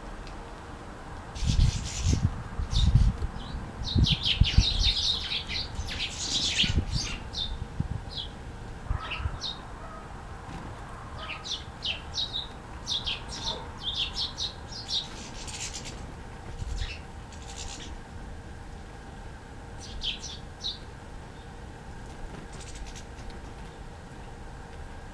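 Small songbirds chirping: short high chirps that come in quick clusters, thinning out after about sixteen seconds. In the first few seconds several loud low thumps and rustles stand out.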